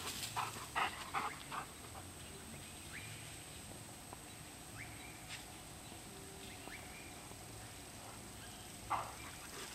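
Two dogs pausing between bouts of play-wrestling: a quick run of short sounds from them in the first second and a half, then a quiet stretch with a few faint high chirps, and one more short sound near the end.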